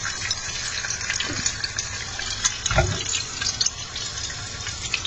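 Diced guanciale sizzling in a frying pan on a gas hob: a steady hiss with scattered small crackles and pops. A dull bump about three seconds in.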